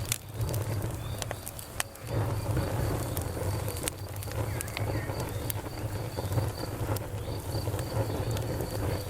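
Wood campfire crackling, with sharp pops scattered through, over a steady low rumble. Crickets chirp in an even, regular rhythm throughout.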